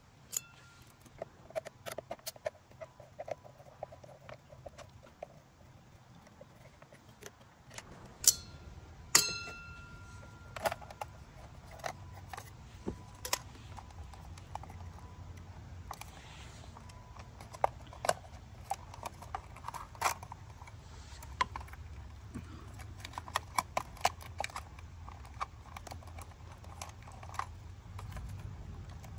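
Hands working on an e-bike's battery mount, controller box and wiring: scattered small clicks, taps and rattles of tools, plastic connectors and wires, with two sharp metallic clinks that ring briefly about eight and nine seconds in.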